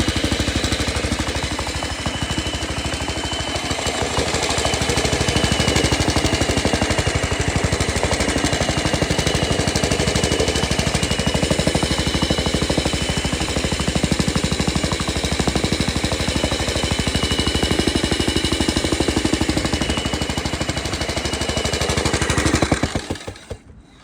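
Mikasa MTX-M55 electric tamping rammer running, its foot pounding rapidly and steadily, with a steady high whine over the blows. It stops suddenly about a second before the end.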